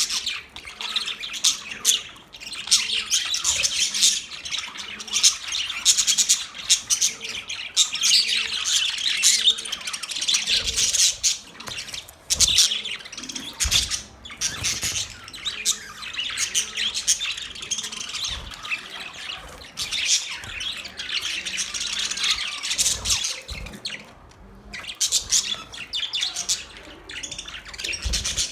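Budgerigars chirping and squawking in a dense, high-pitched chatter that runs almost without a break, easing off briefly a few times.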